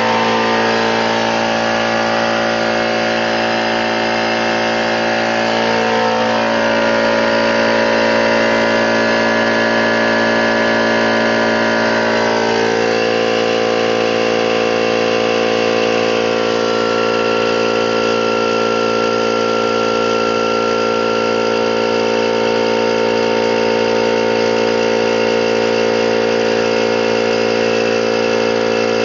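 21-gallon electric air compressor running loudly and steadily just after being switched on, its pump building pressure in the tank. The pitch of the motor's hum shifts slightly twice, about six and twelve seconds in.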